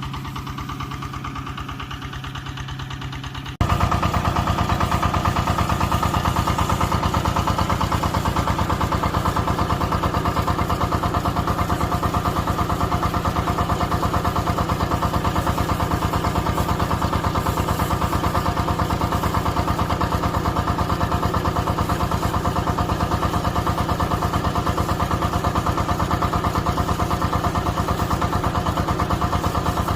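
Excavator's diesel engine running steadily; the sound jumps abruptly louder about three and a half seconds in and stays level after that.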